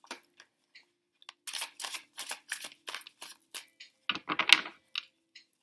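A deck of tarot cards being shuffled by hand: a run of crisp card flicks and snaps, building to a dense, louder riffle about four seconds in.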